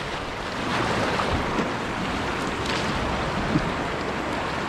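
River whitewater rushing steadily at high flow.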